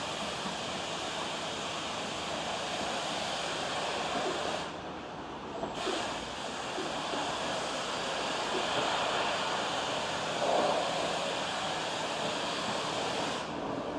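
Steady rushing wind noise, with a Class 484 electric train, a converted former London Underground D-stock unit, drawing slowly into the station underneath it.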